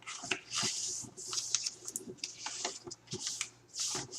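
Sheet of copy paper being handled and folded, a run of crisp rustles with a few sharp crinkles as a corner is pressed down into a crease.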